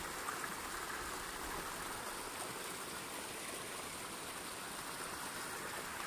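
Small waterfall: water pouring down in a steady rushing hiss.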